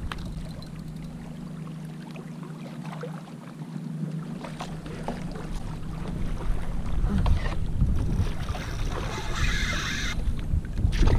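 Wind buffeting the microphone over a low rumble, with water sloshing and lapping against a kayak hull on choppy open ocean; a brief hissing wash of water comes about eight and a half seconds in.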